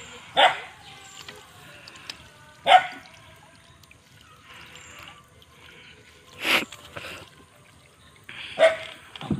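Water trickling and dripping off a wet fishing net as it is pulled by hand out of the water into a canoe, with four short, sharper sounds spread through.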